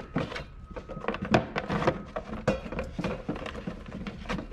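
Irregular knocks and clicks of hard parts and a screw being handled and fitted by hand, several a second, while the upper radiator support is being put back in.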